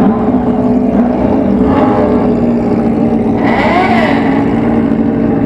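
Motorcycle engine and exhaust running steadily while riding, a constant low drone without big revs.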